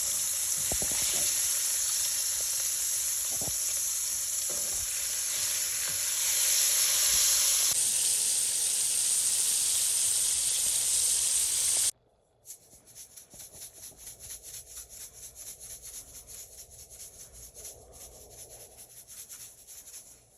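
Whole fish frying in hot oil, a steady loud sizzle. About twelve seconds in it cuts off abruptly to a quieter sizzle of rapid small crackles and pops.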